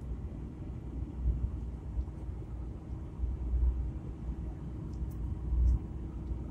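Steady road and engine rumble heard from inside a moving car's cabin, with a low buffeting rumble that swells now and then.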